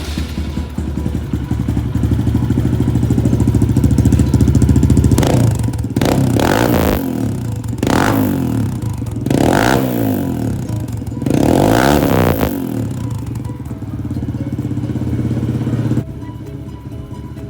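Trail motorcycle fitted with a new Pro Circuit T4 exhaust, running and idling, then revved in a handful of quick throttle blips about five to twelve seconds in, before cutting off near the end.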